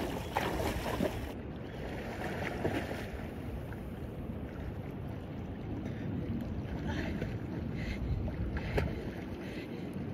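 Wind rumbling on the microphone, with water splashing as a person wades into a cold lake near the start, then fainter splashes of swimming.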